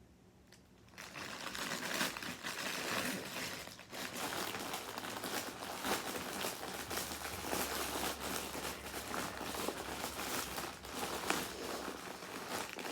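Packaging crinkling and rustling as it is handled and opened by hand, starting about a second in and running on with many small crackles.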